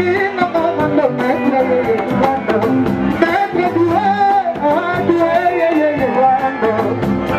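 Music: a song with singing over guitar and a steady beat.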